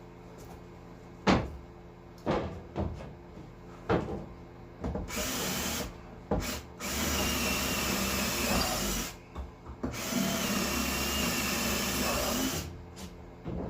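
Power drill drilling bolt holes for the rower seat: a short run, then two longer runs of a few seconds each with a steady whine. A few sharp knocks come before the drilling starts.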